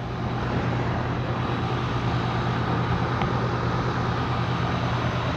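An engine running steadily with a constant low hum, its level rising slightly at the start and then holding even.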